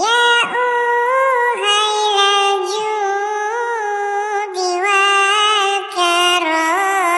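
High-pitched, AI-generated singing voice singing a sholawat melody: held notes linked by ornamented turns and glides, with short breaks between phrases.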